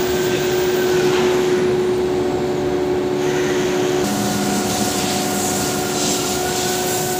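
ATC CNC router with a 9 kW spindle routing cabinet door panels: a steady mechanical drone with a high whine that wavers slightly, over the rush of dust extraction. About four seconds in, the machine's tone changes abruptly.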